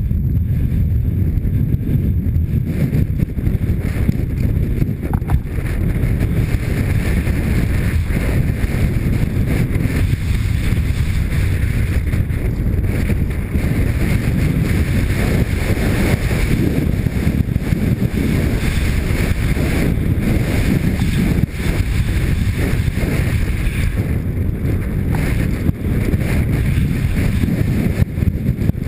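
Steady wind rushing over a helmet-mounted action camera's microphone during a fast mountain-bike descent, mixed with the rumble and rattle of tyres rolling over loose rocky dirt.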